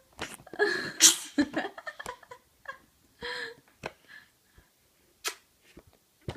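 A string of short, irregular made-up noises: breathy snorts and sneeze-like puffs mixed with sharp clicks and a few brief squeaky vocal sounds. The loudest puff comes about a second in.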